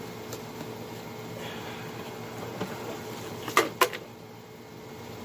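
Two sharp clicks in quick succession a little past halfway, over a steady faint hum.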